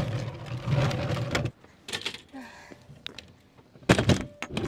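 A low rumble for about a second and a half that cuts off abruptly, then scattered knocks and clatters of a folding table being set up on paving, the loudest about four seconds in.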